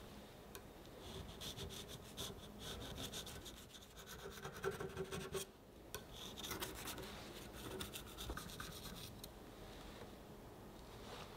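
A thin knife blade run around the inside of a stainless steel ring mould, scraping against the metal and the cake's edge to loosen a baked soufflé pancake. Quick rasping strokes start about a second in and go on until near the end, with a brief pause around the middle.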